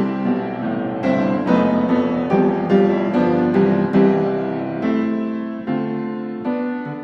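Background piano music playing a steady run of notes, about two or three a second.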